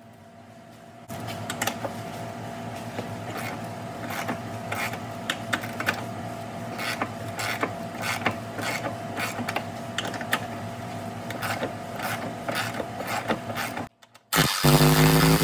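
A hand ratchet clicks in short, irregular strokes as a rust-seized hitch-mount bolt in the frame channel is backed out and run back in, over a steady low hum. Near the end, after a brief cut, a power tool's motor starts and spins up loudly.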